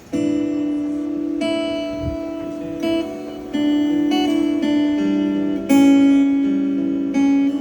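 Acoustic guitar playing the slow introduction to a song: a chord is struck about every one to two seconds and left to ring before the next chord change.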